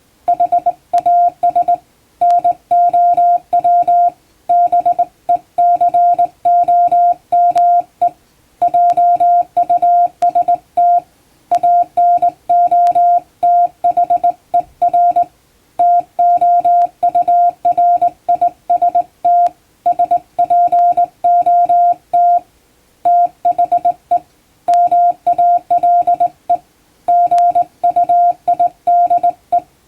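Hand-keyed Morse code: a single steady beep tone switched on and off in dots and dashes, sending plain-language English text in letter groups separated by short pauses.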